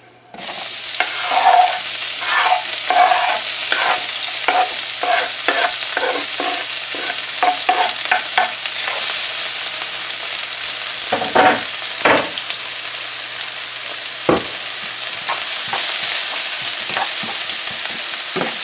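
Chopped scallions, onion and hot pepper hitting hot oil in a frying pan and sizzling, the hiss starting suddenly just after the start. A spoon stirs through the pan with many short scrapes and clicks, and a few louder knocks in the middle.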